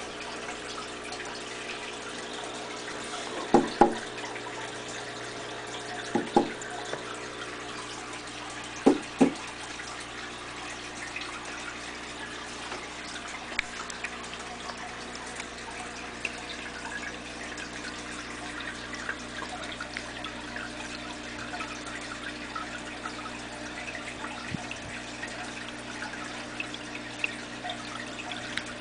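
Aquarium filter running: a steady trickle and splash of water with a low hum. Three pairs of sharp knocks come about 4, 6 and 9 seconds in.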